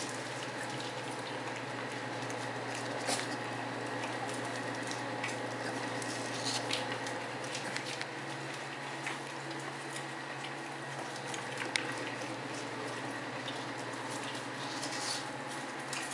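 Several puppies eating from plastic bowls, making a steady run of small wet chewing and lapping noises with scattered light clicks, over a low steady hum.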